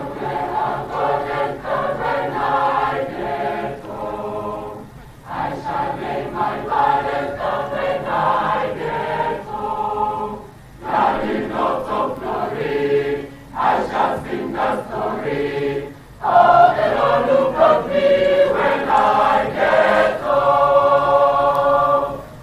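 A large group of recruits singing together in chorus, in phrases of a few seconds with short breaks between them.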